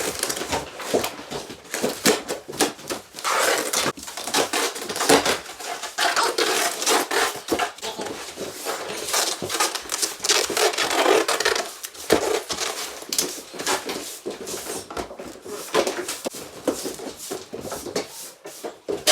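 Irregular clattering and knocking of hard junk being handled and moved, with rattles like pots, dishes and metal odds and ends.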